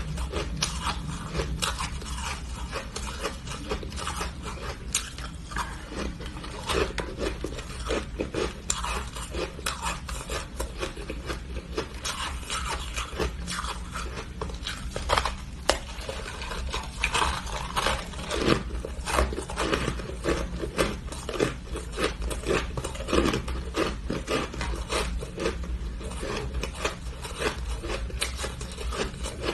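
A person biting and crunching into a frosty block of ice: a dense, irregular run of crisp crackles and crunches over a steady low hum.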